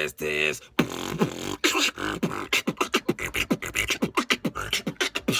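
Beatboxing: a fast run of vocal percussion hits, several a second, many with a quick downward pitch drop, starting about a second in.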